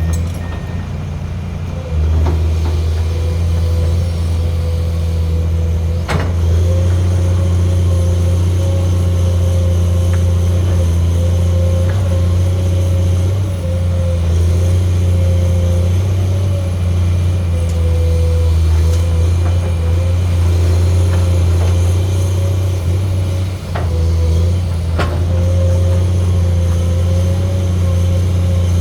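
Excavator running at working revs, a steady low engine drone with a wavering hydraulic whine above it, growing louder about two seconds in as it takes load. A few sharp knocks sound, one early on and a couple near the end.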